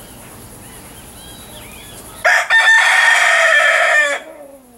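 A rooster crowing once, loud and about two seconds long, its final drawn-out note falling in pitch. Faint chirps of small birds come before it.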